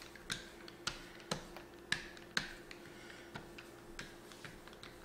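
Small handled pastry roller rolling biscuit dough out on a wooden cutting board: irregular light clicks and taps, about one or two a second, with a faint steady hum underneath.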